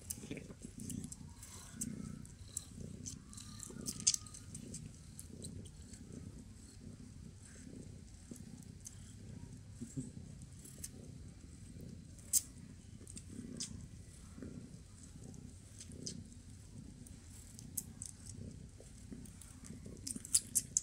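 Cat purring close up, a low purr that swells and fades in a steady rhythm, with scattered sharp wet clicks of a kitten suckling at its mother's teats.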